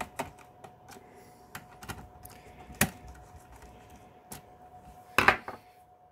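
Screwdriver clicking and scraping against the screws of a power supply's metal screw-terminal block as the terminals are undone, with small irregular clicks and one sharper click near the middle. About five seconds in comes the loudest clack, as the screwdriver is put down on the bench.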